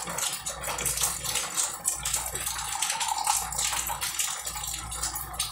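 Water pump running: a steady rush of flowing water with a low hum underneath, and small clicks scattered through it.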